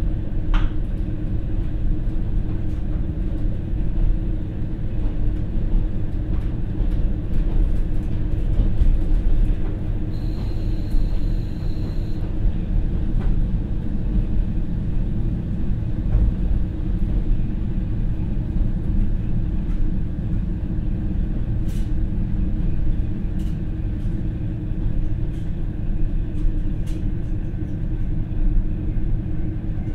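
Kiha 40-series diesel railcar running, heard from inside its passenger cabin: the steady rumble of its original, non-direct-injection DMF15HSA diesel engine driving through the torque converter, with the rolling noise of the train on the track. A few faint clicks come later on, and a brief high-pitched ringing lasts about two seconds, about ten seconds in.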